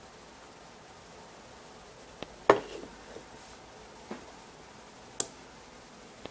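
A few sharp clicks and knocks from handling a small circuit board with a plastic battery box: the loudest knock, about two and a half seconds in, as it is set down on a wooden tabletop, then smaller clicks as fingers work at the battery-box end.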